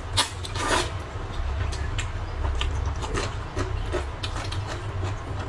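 Eating sounds: a couple of quick slurps of rice noodles in soup in the first second, then softer chewing and rubbing noises.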